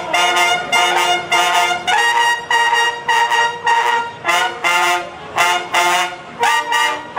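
A marching band's brass section, trumpets among them, playing a run of short, accented chords, about two a second.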